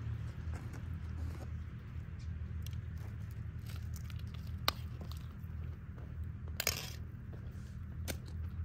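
Soft squishing of a meat-and-rice filling being pressed by hand into hollowed eggplants, with a few sharp clicks and one brief rustle about two-thirds of the way through. A steady low hum runs underneath.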